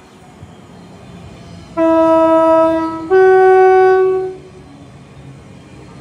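Class 345 Elizabeth line train sounding its two-tone horn on approach: a lower note for about a second, then a slightly higher note for about a second, over the rumble of the oncoming train.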